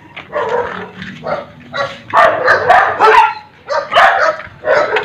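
A dog barking: a quick run of short barks starting about two seconds in.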